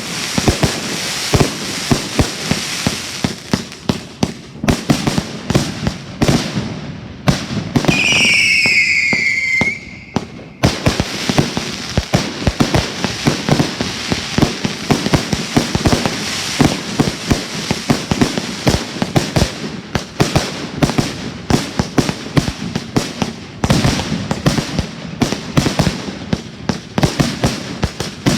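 Fireworks going off in rapid, continuous succession: many sharp bangs and crackling pops one after another. About eight seconds in, a whistling firework lets out a falling whistle that lasts about two seconds.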